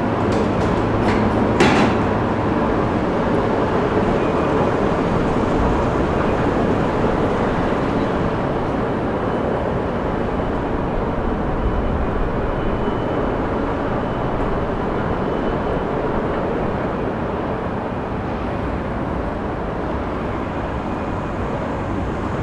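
Steady rumble of an underground metro station, easing slightly toward the end, with a few sharp clicks in the first two seconds.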